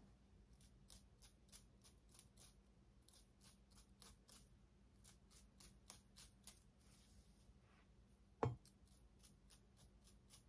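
Faint, quick clicking of a small metal hand tool worked at a wig's lace, about three irregular clicks a second, with one louder knock about eight and a half seconds in.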